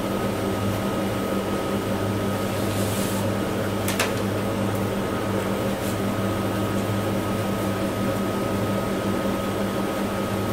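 Steady low electrical hum with a thin high tone and hiss, unchanging throughout, with a single sharp click about four seconds in.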